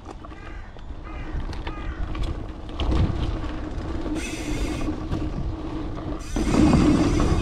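Mountain bike rolling over a dirt trail, with tyre rumble and wind on the camera building as it gathers speed. It is loudest from about six seconds in, on the fast run-in. Birds chirp briefly in the first couple of seconds.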